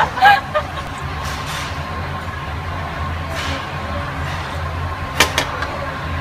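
Steady low hum of a restaurant dining room, with a short laugh at the start, a quick slurp of soup from a spoon midway and a single sharp clink near the end.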